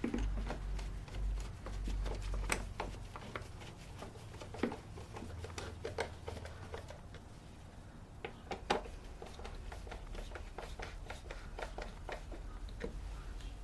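Scattered light clicks and knocks of hands handling the air filter housing and its parts, over a steady low hum.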